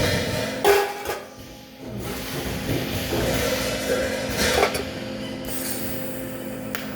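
A few sharp metallic knocks and clinks over a steady electrical hum.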